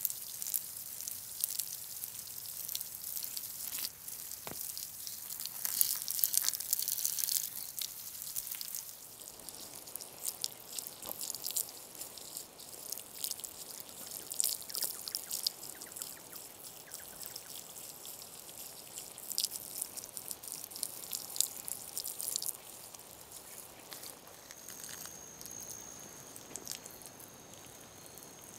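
Water from a garden hose spattering and dripping onto a horse's wet coat and the ground: an uneven patter of small splashes, busier in the first third.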